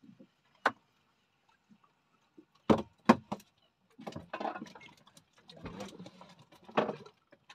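A few sharp knocks and clicks: one just under a second in, then three loud ones close together about three seconds in, followed by rustling, handling noise and another knock near the end.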